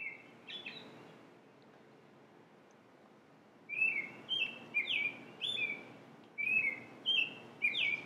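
American robin singing: short clear whistled notes in phrases, a couple at the start, then a run of several notes about four seconds in and another about six and a half seconds in.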